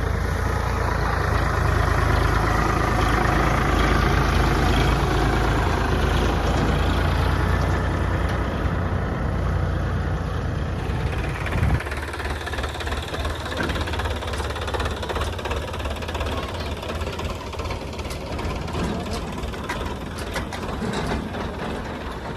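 Sonalika DI 42 RX tractor's diesel engine running a paddy thresher, a loud steady mechanical din. About halfway through there is a brief loud thump, after which the deep rumble drops away and the engine and machine run on lighter with scattered ticks.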